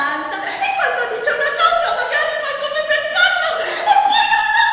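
A woman's voice, half-spoken and half-sung, sliding up and down in pitch without clear words.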